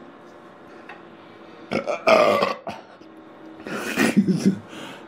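A man burping twice, each long, loud and wavering: one about two seconds in and another near four seconds.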